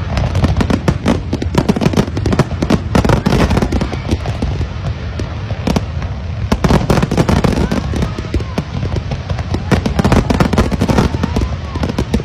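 A large fireworks display: a dense, unbroken barrage of aerial shell bangs and crackles over a deep rumble.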